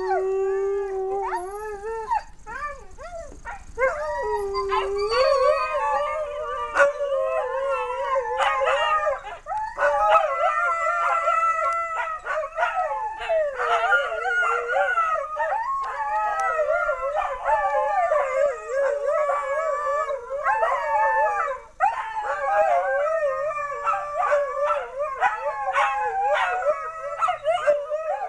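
Several dogs howling together in long, wavering, overlapping howls, with a few short yips mixed in. A single howl at the start builds to a full chorus about four seconds in.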